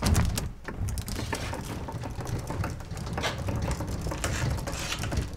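Knocking, clicking and rattling of an old, worn wooden kitchen dresser being handled, its doors and loose parts clattering, with a loud knock at the start.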